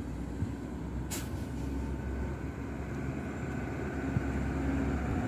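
Hino FM1J truck's diesel engine running as the truck approaches, a steady drone that grows slowly louder, with a short hiss about a second in.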